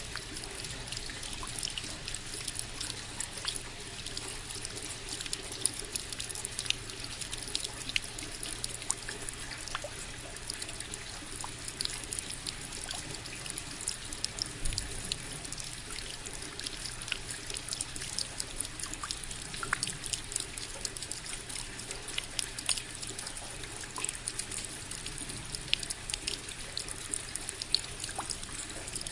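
Steady rain, with many sharp individual drops striking close by over an even hiss.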